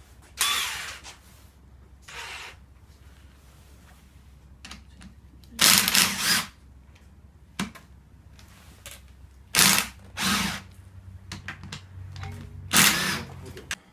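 A power tool running in short bursts, about six times, as bolts are unbolted from an engine oil pan, over a steady low hum.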